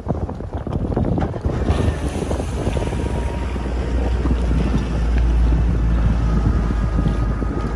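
Wind buffeting the microphone in a steady low rumble over choppy sea water sloshing and splashing, with faint steady tones in the second half.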